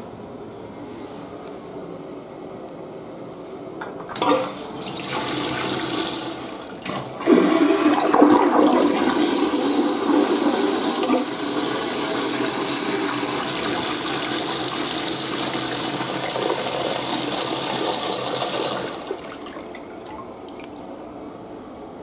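INAX (LIXIL) toilet flushing: water starts about four seconds in, surges loudly about three seconds later, and rushes steadily through the bowl before cutting off near the end.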